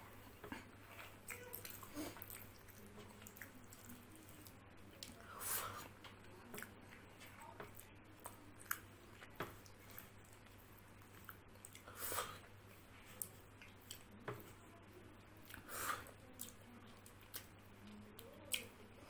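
Close-up eating sounds: chewing of rice and curry eaten by hand, with wet mouth smacks and small clicks scattered throughout, and a few louder smacks every few seconds.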